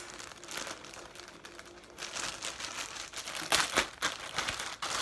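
Plastic packaging bag crinkling and rustling as it is handled and opened, with a few louder crackles about three and a half seconds in and again at the end.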